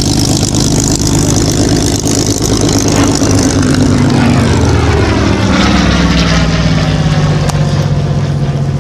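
Yak-3UTI fighter's piston engine and propeller running loud at display power on a pass, its note dropping in pitch about halfway through as the aircraft goes by.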